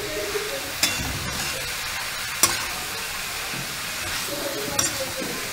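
Spatula stirring sliced onions and raw mango in a hot kadhai, knocking against the pan three times over a steady sizzle of frying.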